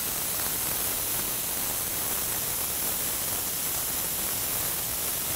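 Smashed beef burger patties sizzling on a hot flat-top griddle: a steady, even hiss.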